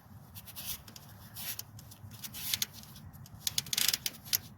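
Light clicks and scraping from a transmission part being turned by hand, over a low steady hum, with a brief burst of rustling handling noise near the end.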